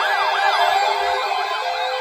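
Electronic siren yelping: a fast rising-and-falling wail of about four sweeps a second, over several steady tones. The sweeps grow fainter about a second in.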